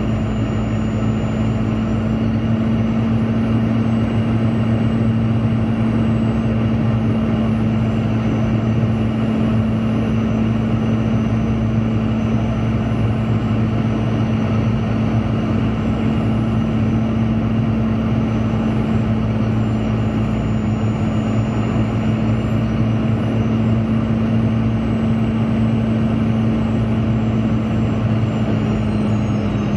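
Boeing 717's Rolls-Royce BR715 turbofan engines running steadily with a low, even drone over a rushing of air. Near the end a faint high whine glides down in pitch.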